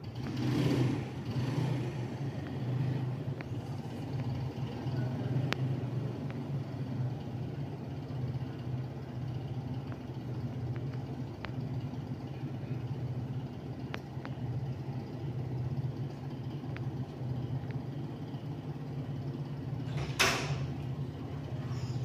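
National F-EY149 140 cm industrial ceiling fan running, a steady low motor hum under the rush of air from its blades, with a few faint ticks. It turns slowly, which the owner puts down to a weakened capacitor. Near the end there is one brief rush of noise.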